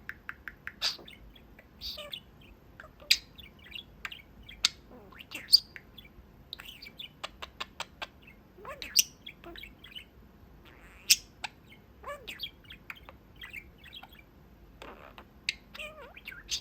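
Pet budgie (budgerigar) chattering: a running string of short chirps, clicks and quick warbling notes, with a few louder sharp chirps scattered through.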